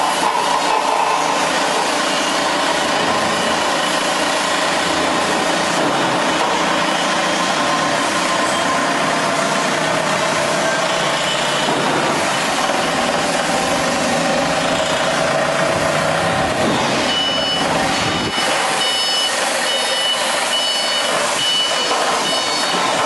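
Forklift engine running steadily while the truck handles drums with a drum-grab attachment. About three-quarters of the way in, a reversing alarm starts beeping repeatedly as the forklift backs up.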